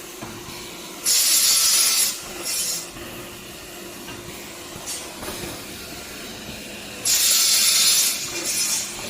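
Automatic CNC bamboo stick sawing machine running, its saw cutting through bamboo twice, about six seconds apart; each cut is a loud hissing rasp lasting about a second, followed by a shorter, quieter burst. A steady machine hum runs underneath.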